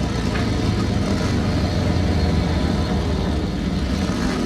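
Vehicle engines running with a steady low rumble.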